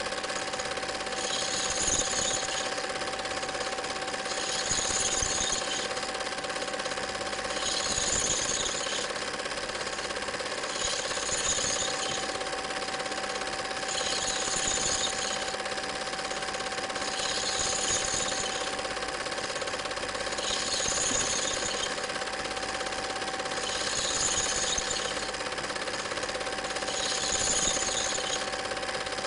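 Film projector running: a steady mechanical clatter over a constant hum tone, with a brighter rasp returning about every three seconds.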